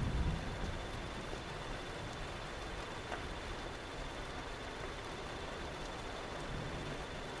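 Recorded thunderstorm ambience: a steady hiss of rain, with a low rumble of thunder dying away about a second in. A faint steady high tone runs through it.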